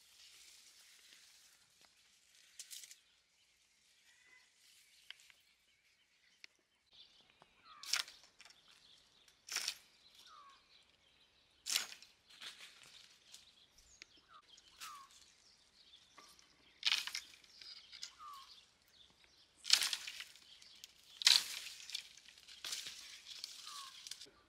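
A long bamboo pole striking and rattling the branches of a drumstick (moringa) tree to knock its pods down: about seven sharp cracks with leaf rustle, irregularly spaced, starting about eight seconds in. Short bird chirps sound between the hits.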